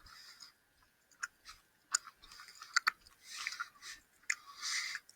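A person chewing a gummy lip candy: soft wet mouth smacks and clicks, coming in scattered short bursts.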